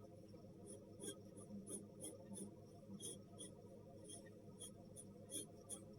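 Faint pencil strokes scratching lightly on paper, a quick irregular run of short strokes, about two or three a second.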